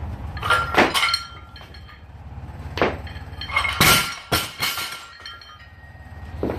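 Loaded barbell with weight plates clanking and ringing during a power clean, then dropped to the floor with several clangs about four seconds in, followed by one more knock near the end.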